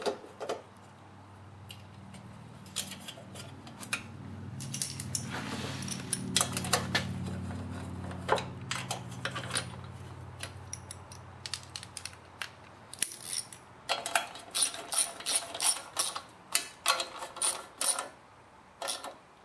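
Metal clinks of a steel air filter bracket being fitted to a V-twin small engine, then a small socket ratchet clicking in quick runs through the second half as its nuts are tightened. A low steady hum runs under the first half.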